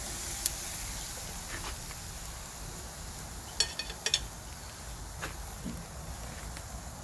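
Beef steak sizzling on the hot grate of a charcoal Weber kettle grill, with a few sharp crackles, most of them in a quick cluster in the middle.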